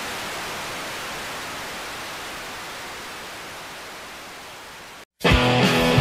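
A steady hiss of static noise, fading slowly, that cuts off about five seconds in. After a brief silence, electric guitar rock music starts near the end.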